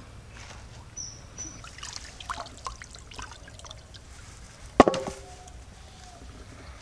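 Water trickling and splashing while raw goat head is handled, with scattered light knocks and one sharp clank that rings briefly about five seconds in.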